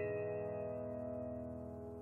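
Instrumental background music: a held chord of soft, bell-like notes ringing on and slowly dying away, with no new notes struck.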